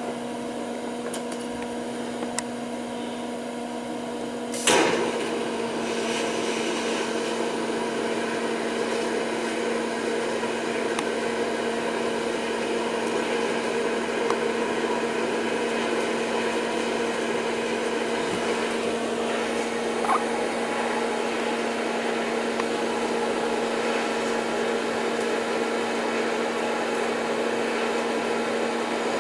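TIG welder with a steady electrical hum; about five seconds in the arc strikes with a sharp crack, then it buzzes and hisses steadily as steel coat hanger wire is fed in as filler rod.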